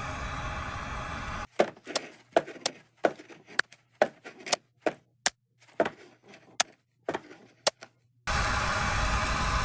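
Steady wind noise that cuts out abruptly after about a second and a half, giving way to a quick irregular run of sharp clicks and knocks, roughly three a second, like handled cooking gear and utensils; the wind noise cuts back in abruptly near the end.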